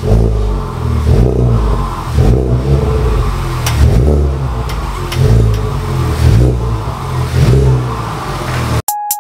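A car engine revving repeatedly, loud, with a swell about once a second. Near the end it cuts off abruptly and electronic synth music begins.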